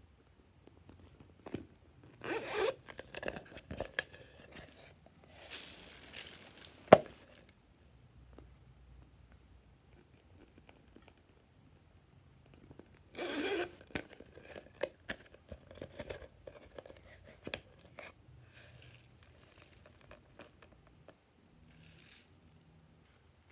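Hands handling hard plastic toy cases over a glass tray of slime: irregular bursts of rustling and scraping, with one sharp plastic click about seven seconds in.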